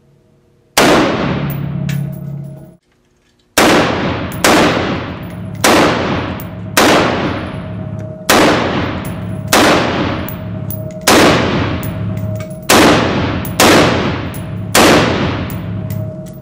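Adcor BEAR Elite AR-15 rifle in .223 firing about a dozen semi-automatic shots roughly a second apart, each with a long echoing tail from the indoor range. One shot comes first, then the sound cuts out sharply for a moment before the string of shots.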